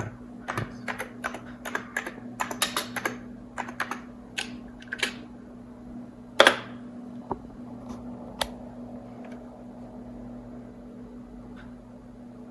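Typing on a computer keyboard: a quick run of keystrokes for about five seconds, then one loud, heavier keystroke about a second later and a last single click, over a steady low electrical hum.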